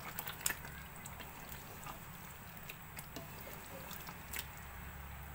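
A spoon stirring thick chicken curry gravy in a metal pot: soft wet sounds with a few faint clicks of the spoon against the pot.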